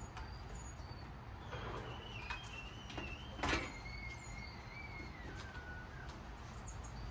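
Small birds chirping faintly, with a long high wavering whine that steps lower in pitch through the middle, and a sharp click about three and a half seconds in.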